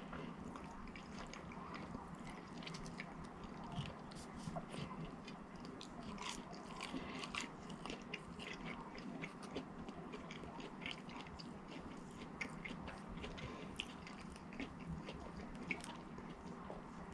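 A person chewing and biting a mouthful of food close to the microphone: quiet, irregular small clicks and smacks throughout.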